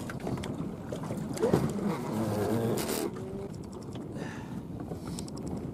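Handling and movement noise of a person shifting about a fishing boat's deck, with knocks and rustles over wind on the microphone. It gets louder for a second or so about a second and a half in.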